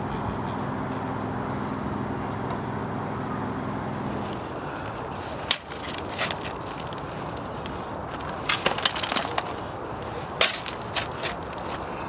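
A shovel digging into a gravel pile and tipping gravel into a wheelbarrow, with crunching, rattling strokes in the second half. Before that, a steady low hum stops about four seconds in.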